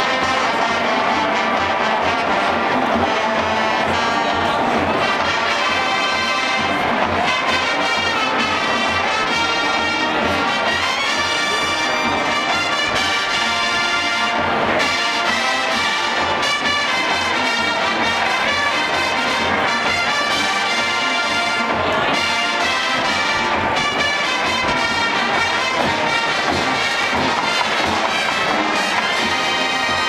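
Marching band playing on the field, its brass section (trumpets, trombones and other horns) carrying the tune at full volume.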